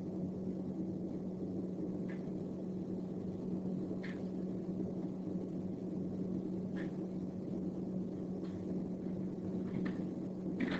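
Steady low electrical hum with background noise from the recording setup, with about six faint, short ticks scattered through it.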